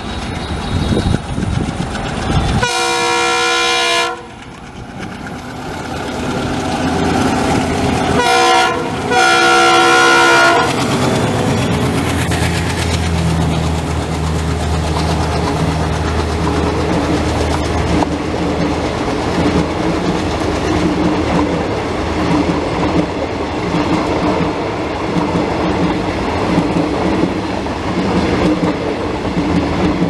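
ALCo diesel locomotive sounding its multi-tone horn, once about three seconds in and again in a longer blast about eight to ten seconds in. The locomotive then passes close with a deep engine rumble, and a long rake of coaches follows, running by with a steady clickety-clack.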